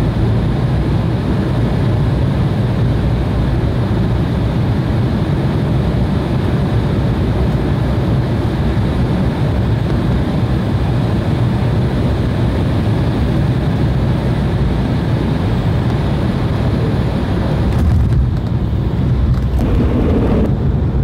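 Steady roar inside the cabin of an Embraer 170 regional jet: turbofan engines and airflow, heavy in the low end. The hiss thins out near the end.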